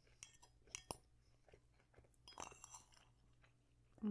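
A person chewing a crisp mouthful of falafel close to the microphone: several short, faint crunches in separate bursts.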